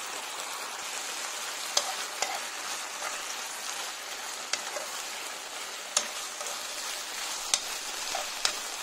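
Chicken breast pieces sizzling in olive oil and honey in a nonstick frying pan as they are stirred and turned, with about six sharp clicks of the utensil against the pan.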